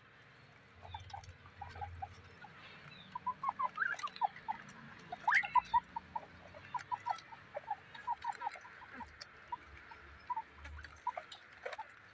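A group of guinea pigs making many short squeaks and chirps while eating lettuce, with one rising call about five seconds in.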